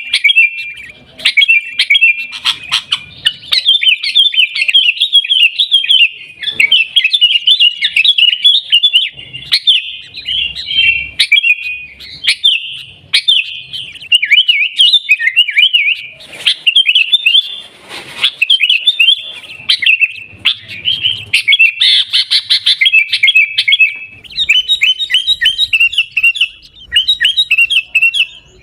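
Sooty-headed bulbul (kutilang) singing and chattering in a rapid, nearly unbroken run of short chirping notes, with only brief pauses. A few sharp clicks or taps sound among the notes.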